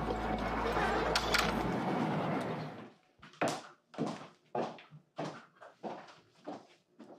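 A loud, dense din that fades out about three seconds in. It is followed by a string of footsteps, about two a second.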